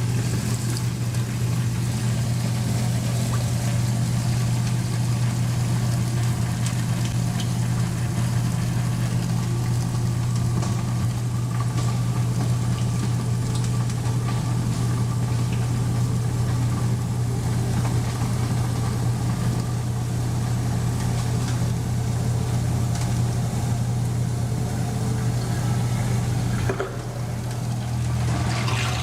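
Garbage disposal motor running with a steady hum, grinding ice while hot tap water runs into the sink drain; it cleans out the disposal. The sound dips briefly near the end.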